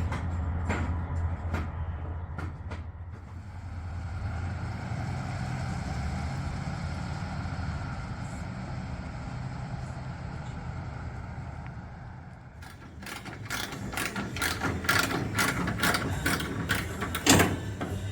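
A vehicle engine running with a low steady hum, then, in the last five seconds or so, a quick run of sharp metallic clicks and knocks.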